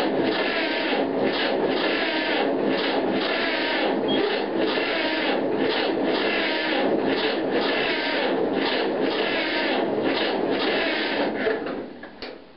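Electric starter cranking a John Deere Model A's two-cylinder engine on a cold start, in an even rasping rhythm of about two beats a second, without the engine catching; the cranking stops near the end. The owner suspects he has flooded the engine.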